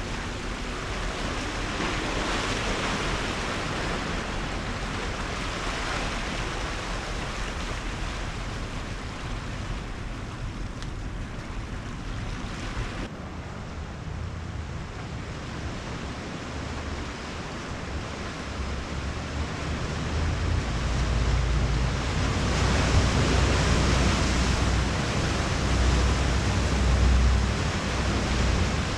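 Ocean surf washing over shoreline rocks, a steady rushing wash, with wind buffeting the microphone. The sound changes abruptly about halfway through, and a low wind rumble grows louder over the last third.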